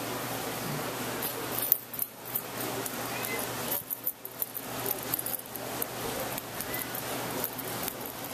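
A young kitten eating wet food from a small glass dish and licking its lips: a run of light, irregular clicks, taps and smacks, the sharpest about two seconds in, over a steady background hiss.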